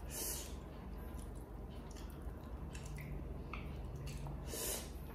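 Faint wet chewing and squishing of stir-fried instant noodles and sausage in the mouth, with a few soft smacks over a low steady hum.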